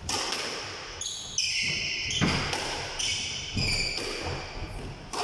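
Squash play: a ball knocked hard about five times, off racket and walls, with high short squeaks of shoes on the court floor between the hits.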